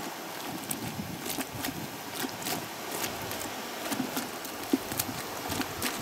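A rubber plunger pumped up and down in a plastic bucket of hot soapy water, splashing and knocking irregularly as it agitates knitted wool to felt it.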